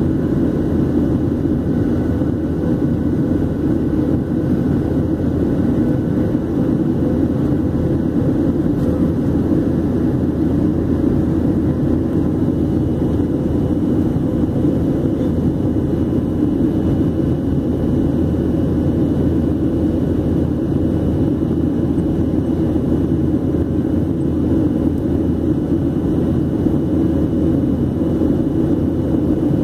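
Cabin noise of a Boeing 737-800 in flight after takeoff, heard at a window seat over the wing: its CFM56-7B turbofan engines and the rushing air make a steady, deep, even noise with a faint steady whine on top.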